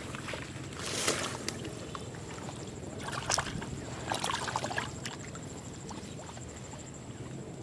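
Water splashing and sloshing in a few short bursts, about a second in and again around three to five seconds in, over a steady low rumble and a faint steady high tone.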